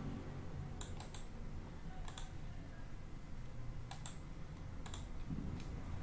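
Computer keyboard and mouse clicks: scattered single and paired clicks about a second apart as text is selected and moved in a document, over a low steady hum.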